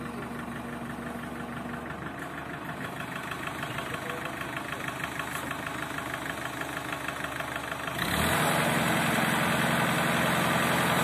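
Tractor diesel engine running steadily with an even rhythmic chug; about eight seconds in it gets suddenly louder and stays louder.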